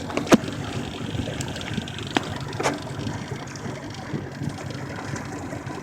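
Lake water sloshing and splashing against the boat, with three sharp knocks, the first the loudest.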